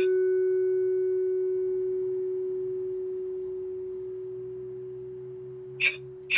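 A single mid-pitched note on a Musser vibraphone, struck with a yarn mallet and left to ring, fading slowly and evenly before it is cut off near the end. Two short sharp clicks come just before the note stops.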